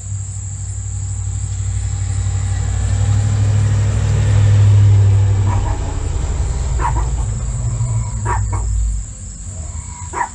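Steady high-pitched insect trilling over a deep rumble that swells to its loudest about halfway through and then eases. A few short higher sounds come in the second half.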